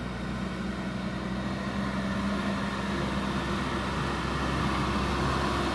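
JCB backhoe loader's diesel engine running steadily, growing gradually louder.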